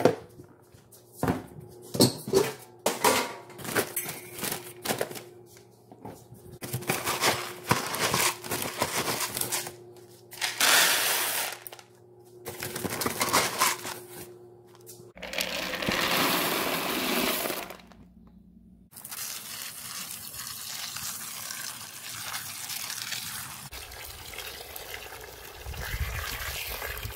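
Flexible rubber feed tubs and a scoop being handled, with a run of knocks and clatters. Then a longer rush of feed being poured, and from about two-thirds of the way in, a garden hose running water steadily into a tub.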